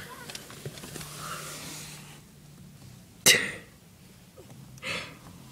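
A single sharp cough-like burst close to the microphone about three seconds in, dying away within half a second, with a weaker breathy burst near the end; a faint low hum lies underneath.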